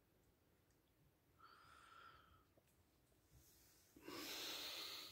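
Mostly near silence, broken by breathing: a soft breath about a second and a half in, and a louder, noisier breath lasting about a second near the end.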